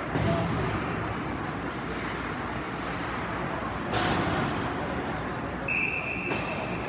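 Ice-rink game sound: a steady background of spectators' voices with a couple of short knocks from play. Near the end comes one steady, high whistle blast lasting about a second, a referee's whistle stopping play.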